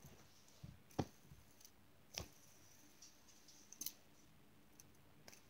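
Faint handling of a metal fidget spinner: three short clicks as it is picked up and turned in the fingers, otherwise near silence.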